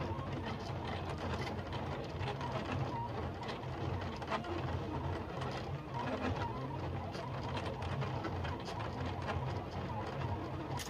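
Silhouette Cameo 3 cutting machine cutting around a printed design: its motors run with a steady low whir that pulses unevenly as the blade carriage and rollers shift, with faint ticks throughout.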